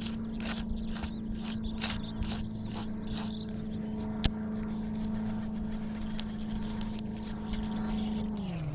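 Motorboat engine running at a steady pitch, then dropping in pitch as it throttles down near the end. Rhythmic clicking at about three a second over the first few seconds, and one sharp click a little after the middle.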